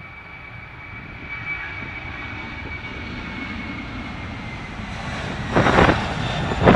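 Airbus A300-600ST Beluga's twin CF6 turbofan engines at takeoff thrust during the takeoff roll: a high whine fades early on while the broad jet rumble grows steadily louder. Gusts of wind hit the microphone about five and a half seconds in and again at the end.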